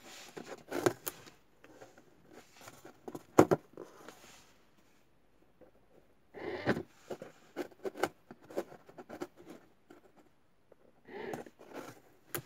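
Cardboard safe box being handled: rustling and scraping of cardboard with scattered knocks, then a run of light taps as its keypad is pressed. A sharp click comes near the end as the door is opened.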